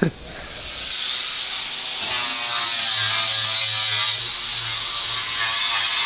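A handheld rotary power tool running steadily as it sands bare car-body sheet metal. The sound swells over the first second and changes abruptly about two seconds in.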